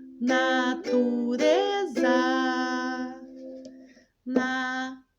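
Ukulele strummed with a woman singing, four notes in quick succession about half a second apart, then a short strum and sung note near the end, beating out the four syllables of the word 'natureza'.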